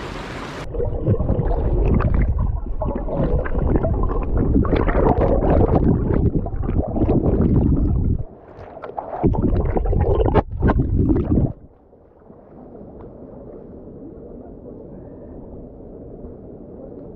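Muffled, gurgling rush of stream water, loud with a brief dip about 8 seconds in, then falling away about 11 seconds in to a low, steady murmur.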